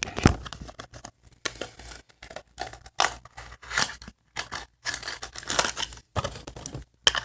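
Toy packaging being opened by hand: a run of short, irregular crinkling and tearing sounds of plastic and paper wrapping.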